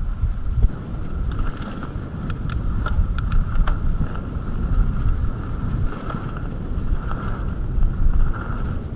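Mountain bike riding a dirt trail, heard from a handlebar-mounted camera: wind buffeting the microphone over the rolling tyres, with a quick run of sharp clicks and rattles between about one and a half and four seconds in.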